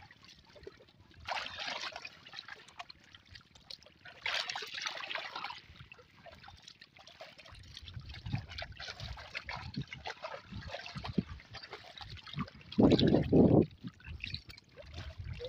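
Shallow river water splashing and trickling around wading legs as a nylon gill net holding fish is lifted and pulled through the water, in irregular bursts, with a louder, duller burst near the end.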